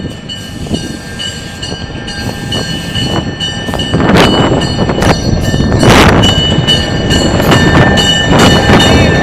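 MLW S-3 diesel switcher locomotive pulling away, its engine rumble growing louder about four seconds in as it takes load. Over it, a steady high ringing pulses at an even beat, like the locomotive's bell. Short loud bursts of hiss come about four, six and eight seconds in.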